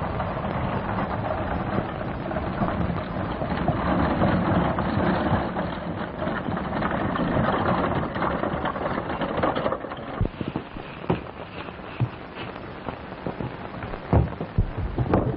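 Horse-drawn wagon clattering over a rough trail, a dense rattling noise, which gives way about ten seconds in to scattered thumps and knocks as the wagon crashes down a rocky slope.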